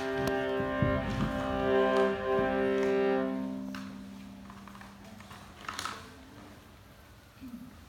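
Violin, viola and cello holding a sustained chord, bowed together, which fades out after about three and a half seconds into a quiet pause.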